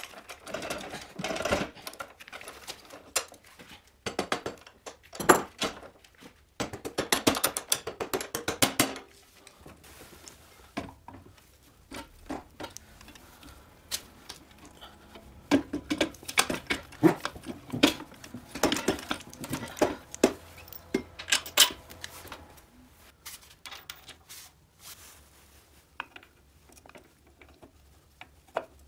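Metal hand tools and moped parts clicking and clinking during assembly. Rapid runs of clicks come in the first nine seconds while the rear axle is tightened. Scattered knocks and clinks follow as the engine is fitted into the frame.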